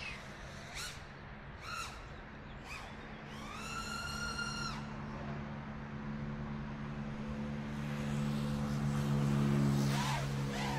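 GepRC SpeedX2 2107.5 brushless motors spinning Dalprop 5-inch props on an FPV racing quad, heard through the onboard camera. A steady propeller drone grows louder toward the end. Short whines and a held whine of about a second come as the throttle changes.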